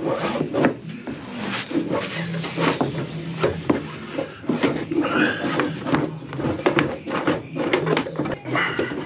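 Plastic plumbing pipe being pushed and fed through holes in timber floor joists: irregular knocking, tapping and scraping of the pipe against wood.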